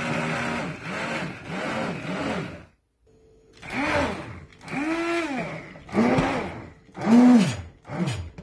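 Electric stick blender puréeing thick cooked tomato, pepper and eggplant sauce in a steel pot. The motor runs steadily at first, stops briefly about three seconds in, then comes in about five short pulses, its whine rising and falling with each press.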